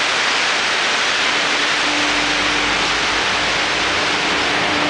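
Steady loud hiss of machinery and air noise from a running silkscreen printing machine in a factory hall, with a faint hum that comes and goes and a low rumble starting about two seconds in.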